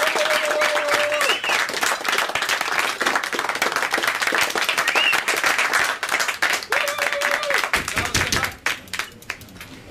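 A small group clapping, with a few voices calling out over the applause. The clapping thins out and stops near the end.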